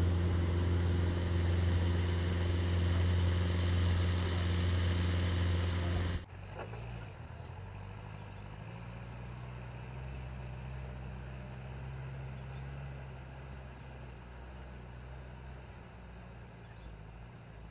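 Heavy construction machinery engines running steadily. A loud, even engine hum cuts off abruptly about six seconds in, and a quieter, lower engine hum carries on after it.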